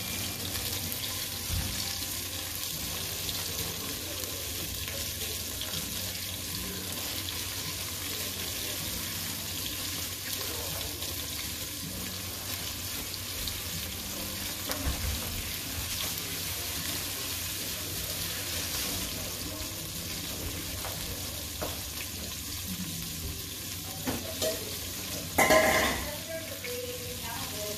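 Flour-dredged chicken pieces frying in hot oil in a pot, a steady sizzle. About 25 seconds in there is one brief, loud clatter.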